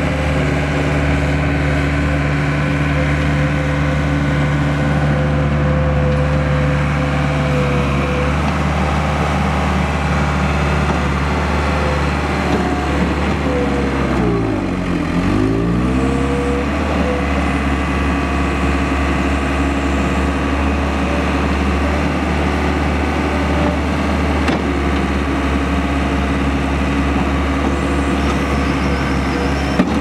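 Case 1845C skid steer's four-cylinder diesel engine running steadily. About halfway through, its pitch drops and comes back up as the engine pulls down under load with the bucket pushing into a dirt pile, then recovers.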